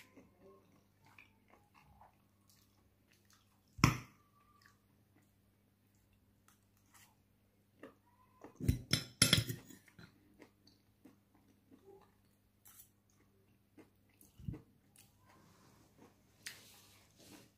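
Close-up eating sounds: wet chewing, with a sharp click about four seconds in and a burst of noodle slurping about halfway through.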